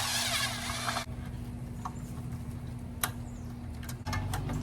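Handling noise as the old mechanical pool timer box is worked off its mount: a sharp click, then about a second of scraping, then a few light clicks and knocks, over a steady low hum.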